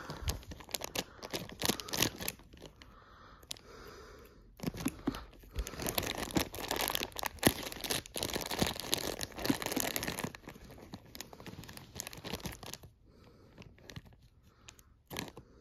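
Thin clear plastic bag crinkling and rustling, being cut with scissors and pulled open by hand, with short snips and clicks. The crinkling is busiest in the middle and thins out near the end.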